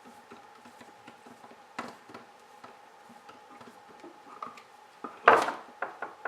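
Small ticks and clicks of a screwdriver tightening a wire under an electrical outlet's terminal screw, with a loud short knock a little past five seconds in. A faint steady high hum runs underneath.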